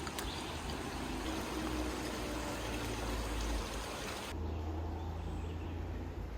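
Steady rushing outdoor noise with a low rumble underneath. About four seconds in, the high hiss drops away suddenly and the low rumble continues.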